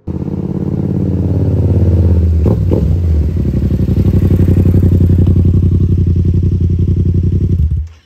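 Yamaha R7's 689 cc parallel-twin engine through a Yoshimura AT2 full titanium exhaust, running loud and steady with a fast throbbing exhaust note. There is a short change in the note about two and a half seconds in, and the sound starts and stops abruptly.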